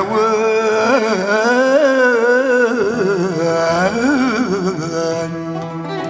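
Kabyle popular music: an ornamented melody line that bends and wavers in pitch over a steady low bass note.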